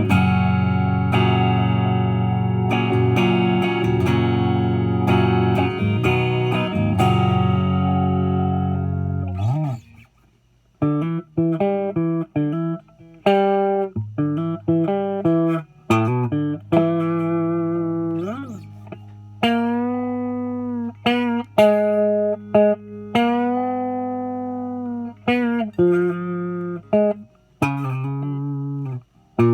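Epiphone 1959 Les Paul Standard electric guitar on both pickups, all controls full up, through an amp's clean channel. It plays ringing strummed chords for about the first nine seconds, then after a short pause switches to picked single notes and double-stops with several string bends.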